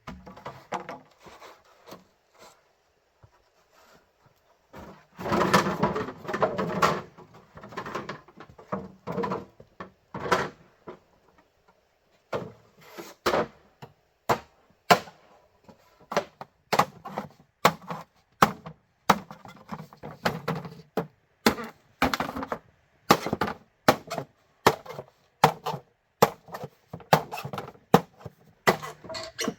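Blows on bamboo with a tool: a run of sharp wooden knocks and chops that come steadily, about one to two a second, through the second half. Around a quarter of the way in there is a longer stretch of rustling and scraping.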